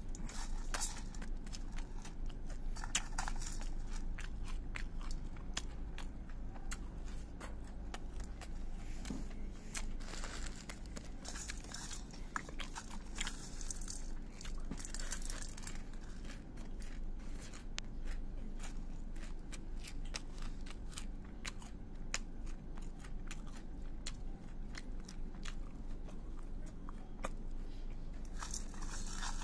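Dry puffed rice crunching and crackling with many small clicks as it is squeezed and mixed by hand with samosa filling in a stainless-steel bowl.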